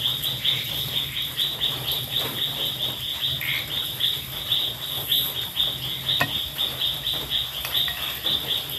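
Crickets chirping in a fast, even pulse of about five chirps a second, over a low steady hum. A few sharp clicks of a knife against the metal pan come near the end as a roast chicken is carved.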